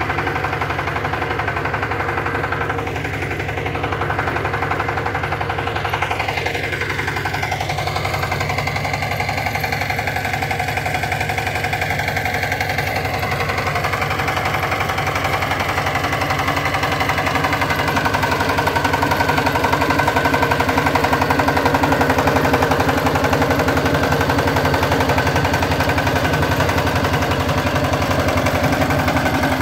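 Kirloskar power tiller's engine running steadily under load as the machine tills soil between crop rows, a fast even chugging that grows a little louder about halfway through.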